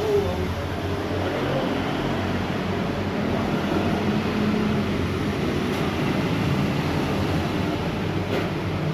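Steady low mechanical drone, like a motor or engine running, with no clear strikes or changes in pitch.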